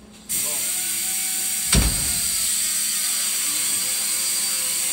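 A loud, steady hiss of workshop machinery starts suddenly a moment in and keeps going. Near two seconds in comes a single heavy metal clunk, the loudest sound.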